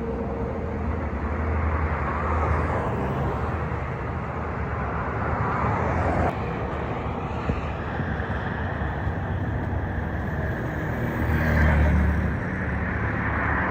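Road traffic on a highway: a steady rumble of passing vehicles, swelling near the end as one passes closer.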